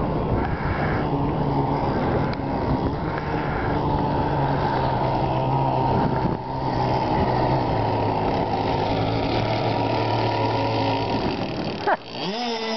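Radio-controlled model speedboat's motor running out on the water, a steady drone under loud wind noise on the microphone. Near the end the boat comes close and its motor whine rises sharply in pitch as it speeds up.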